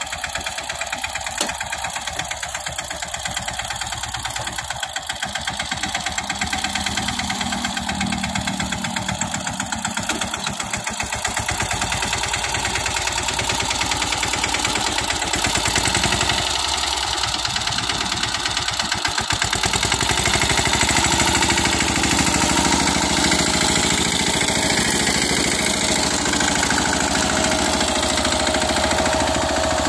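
Mahindra Yuvraj 215 tractor's single-cylinder diesel engine running steadily under load while pulling a cultivator, its rapid even firing beats growing louder from about halfway through.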